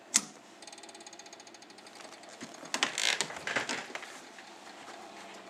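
A push-button switch on a homebrew 813 tube amplifier's front panel clicks once, switching off the high voltage, followed by fast, even ticking for about a second and a half. A cluster of louder rustles and knocks comes near the middle, over the steady hum of the amplifier's cooling fan.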